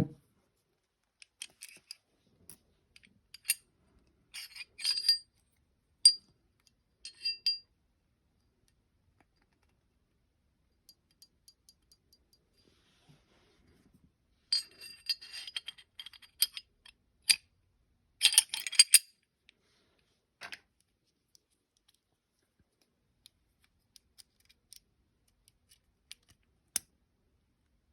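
Glock 29 pistol parts clicking and clinking as they are handled and fitted together, in a few short clusters of sharp metallic clicks with quiet gaps between.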